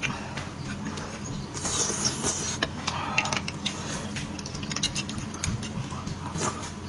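A metal spoon scraping and clicking against the inside of a cooked beef bone as the marrow is scooped out, in a run of short, irregular clicks, with wet mouth sounds as a spoonful is eaten near the end.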